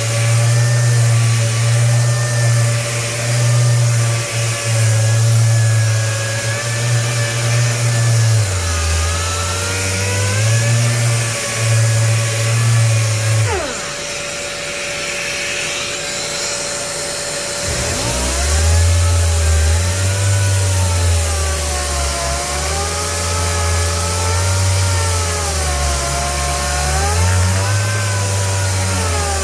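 Electric random orbital sander with an 80-grit 3M Xtract disc running against body filler, its motor note sagging and recovering as it is pressed into the work. About halfway through it spins down and stops for a few seconds, then spins back up and carries on sanding, while a steady whine from the dust extractor goes on throughout.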